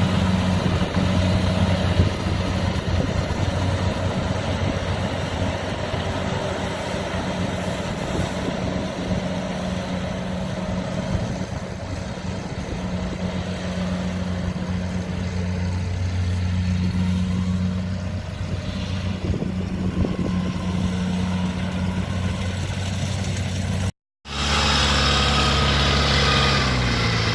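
Diesel engine of rice-harvesting machinery running steadily with a low hum, mixed with machinery noise. After an abrupt cut about 24 seconds in, a louder engine sound follows and its pitch drops near the end.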